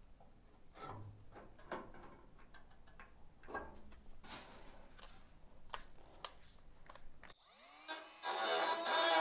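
Handling clicks and rustles, then about seven seconds in a Milwaukee cordless cut-off tool spins up with a rising whine and runs loud against the rusted sheet steel.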